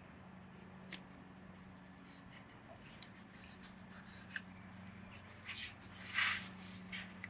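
Faint scratchy rustling and small clicks from hands working a rubber tow-mirror wedge and its soft fabric liner strip. The rustling is loudest near the end, over a steady low hum.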